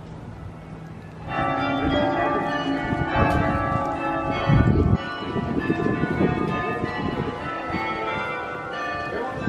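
Church bells ringing, many bell tones sounding together, starting suddenly about a second in.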